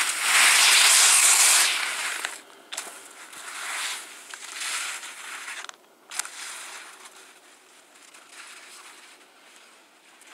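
Skis sliding over snow: a loud hiss for the first couple of seconds, then fainter, uneven swishes.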